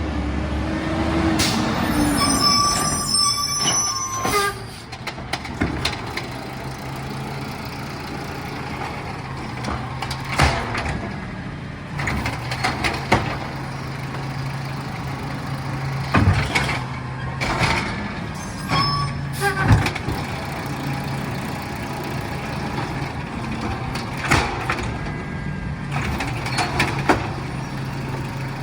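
Yard waste collection truck running steadily with its engine at idle, with repeated knocks and clanks from the pickup. A high, steady squealing tone comes about two seconds in for a couple of seconds, and briefly again near the middle.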